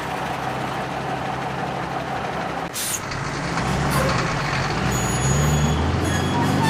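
Heavy truck's diesel engine running, with a short hiss of an air brake about three seconds in. The engine then pulls away, its pitch climbing and the sound growing louder, with faint high squeals near the end.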